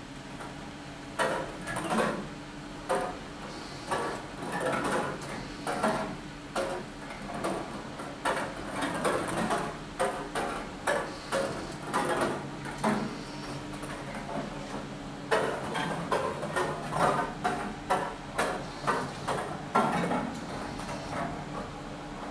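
Ping pong balls clicking and clattering as they drop and roll along the metal tracks of a Meccano ball-lift machine. The knocks come irregularly, often several in quick succession, over the steady low hum of the mechanism driving the Archimedes screw.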